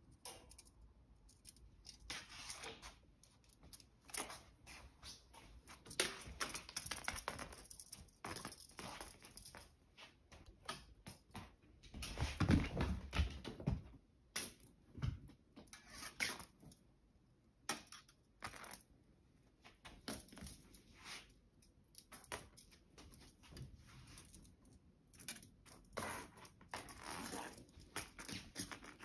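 Scattered rustles, scratches and soft taps of a cat playing with a toy, pawing and scrambling over tatami mats and cushions. A louder run of bumps comes about twelve seconds in.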